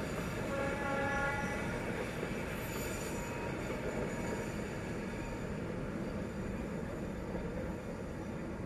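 Freight train hauled by D12E and D11H diesel locomotives running past with a steady rumble of engines and wagons. A short horn tone sounds about a second in, and there is a faint high wheel squeal around three seconds.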